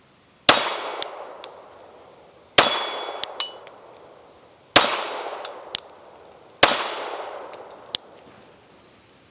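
Four shots from a Glock 43X 9mm pistol, about two seconds apart, each with a long echoing tail, a brief high ring and a few light clinks after it.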